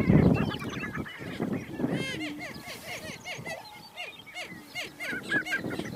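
Male Greater Prairie-Chickens cackling at each other in a territorial confrontation on the lek: a loud burst right at the start, then a fast, continuous run of short harsh calls, several a second.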